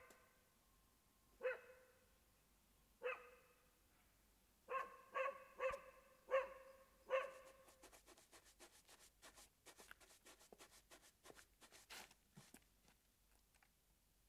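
A dog barking: single barks about a second and a half apart, then a quicker run of barks, followed by a stretch of light irregular clicks.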